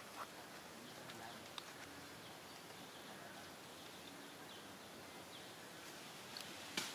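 Faint outdoor ambience: a steady hiss of background noise with a few faint, short high chirps, and a sharp click near the end.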